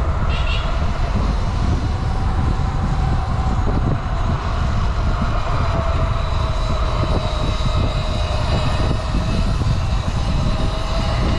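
Wind buffeting the microphone as a rider moves at speed on an electric board or e-bike, with a steady faint whine that fits the electric motors.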